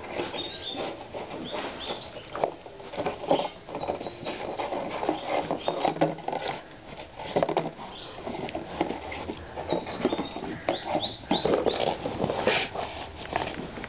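Potbellied pig nosing, pushing and biting at a duct-taped cardboard food box: irregular crackling, scraping and tapping of the cardboard and its plastic liner against the rug.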